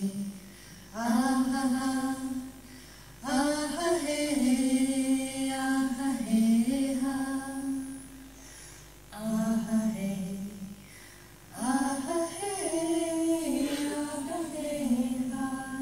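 Unaccompanied singing played back over loudspeakers, in held, chant-like phrases one to four seconds long with short pauses between them.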